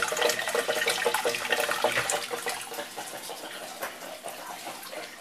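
Water running and splashing steadily in a turtle tank, growing quieter after about three seconds.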